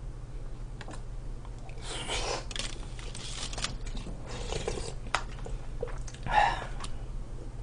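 Close-up eating noises: slurping kimchi-stew broth from a spoon and chewing, with a few spoon clicks, loudest about six seconds in.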